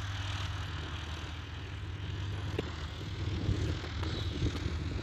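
Single-engine propeller light aircraft's engine droning steadily at a distance.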